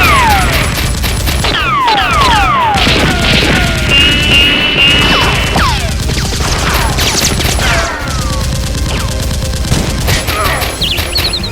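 Loud action soundtrack: music with a steady beat, mixed with rapid gunfire sound effects and repeated falling whistle-like swoops.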